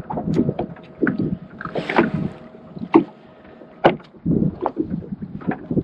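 Irregular small clicks and taps of hands handling a jig and a small bottle of fish scent, with a brief hiss about two seconds in, over light wind noise.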